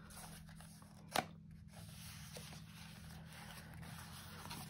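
Pages of a handmade mixed-media art journal turned by hand: faint paper rustling, with one sharp tap about a second in.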